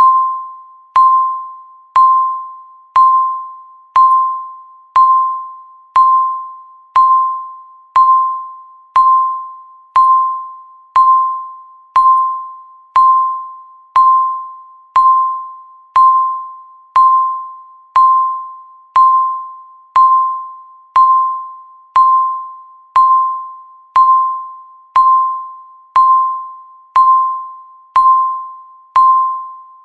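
Countdown timer beeping once a second: a single electronic tone that strikes sharply and dies away over the second, each beep marking one second ticking off.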